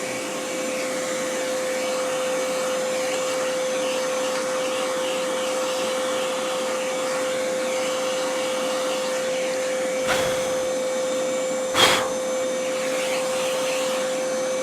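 Oreck XL hand vacuum running steadily with a brush attachment, a single high motor whine over a rushing hiss of air. Two brief knocks or rattles come about ten and twelve seconds in, the second louder.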